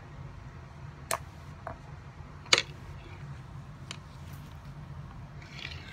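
A handful of sharp clicks and taps of plastic makeup cases and applicators being handled on a tabletop, the loudest about halfway through, over a steady low hum, with a soft rustle near the end.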